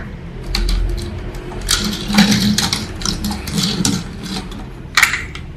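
Plastic parts of a transforming toy police boat clicking and knocking as it is handled and turned on a wooden table, in short irregular clicks with a louder knock about five seconds in, over a steady low hum.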